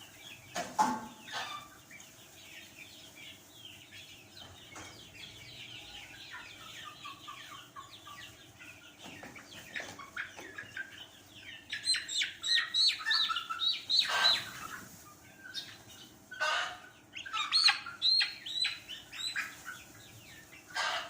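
A flock of chickens in a poultry shed, calling and clucking continuously in short, high-pitched calls that swell in busy bursts about twelve and seventeen seconds in. A few knocks stand out among the calls, as the feeders and drinkers are handled.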